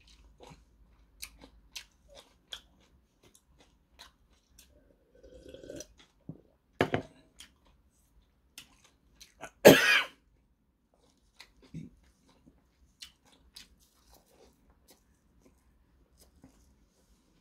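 Close-miked chewing of seaweed-wrapped pork belly and kimchi, with many small wet mouth clicks and smacks. Two louder bursts, the loudest about ten seconds in, a cough after spicy food.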